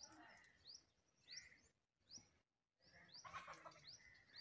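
A bird chirping faintly over and over, each call a short, quickly rising note repeated about every half-second, with the sound cutting out completely for a moment near the middle.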